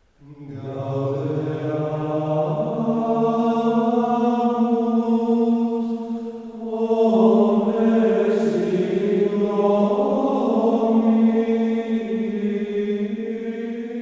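Slow chanted vocal music with long held notes, starting out of silence just after the beginning and stepping to a new pitch every few seconds.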